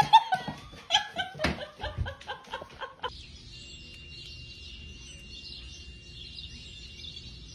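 Laughter and voices with a few sharp knocks, cut off after about three seconds by outdoor ambience of many small birds chirping steadily, with a faint steady whistling tone underneath.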